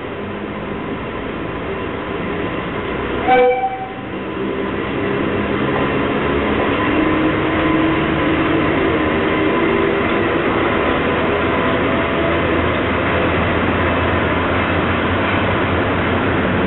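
Seibu E31 electric locomotive gives a short horn blast about three seconds in, then runs past hauling freight wagons, its rumble growing louder and holding steady as the wagons roll by.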